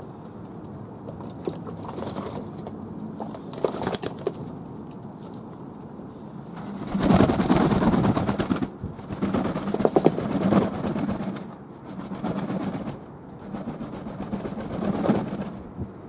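Fantail pigeons cooing: quiet at first, then four cooing phrases of about one to two seconds each, starting about halfway through.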